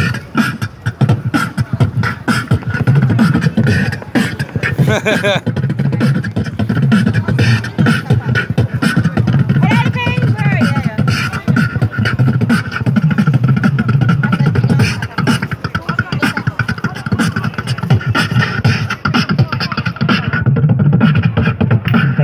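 Beatboxing through a handheld microphone and portable amplifier: a continuous run of rapid mouth-made kicks, snares and clicks over deep bass beats.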